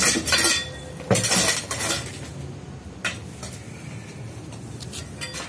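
Broken concrete and metal debris clinking and scraping as it is shifted: a cluster of sharp knocks and scrapes in the first two seconds, then a few separate clinks.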